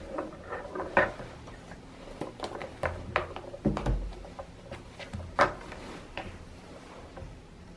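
Irregular small knocks and clicks of objects being handled on a desk, such as a notebook being picked up. The sharpest knocks come about a second in and about five and a half seconds in, with a few dull low thumps about four seconds in.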